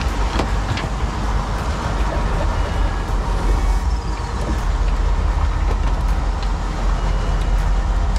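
Steady rumble of a sport-fishing boat's engine with the rush of water and wind, and a couple of faint clicks about half a second in.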